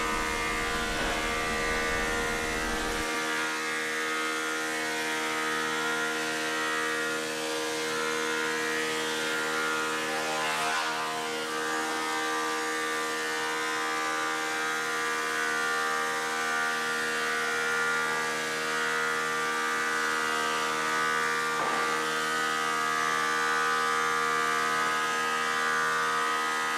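Delta DC-580 20-inch thickness planer with a 5 hp single-phase motor, running with a steady, even whine from its motor and cutterhead.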